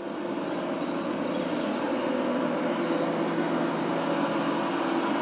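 Steady engine noise with a low hum, coming in suddenly at the start as music cuts off.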